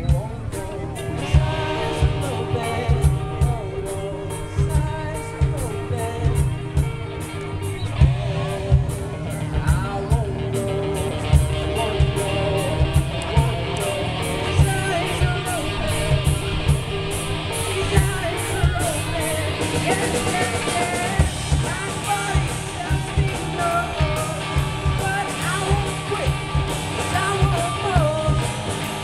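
Live rock band playing: a drum kit keeping a steady beat under amplified electric guitars, with a singer's vocal over the top.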